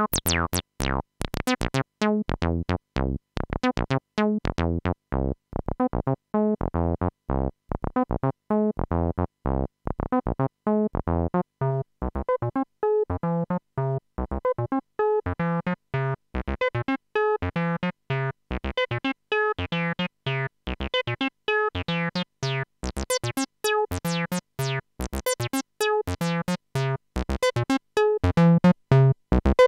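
Behringer TD-3 analog bass synthesizer playing a sequenced square-wave bass line of short notes, about four a second. Its filter is turned by hand: dull and muffled early on, it opens gradually through the middle until the notes are bright and buzzy in the last third.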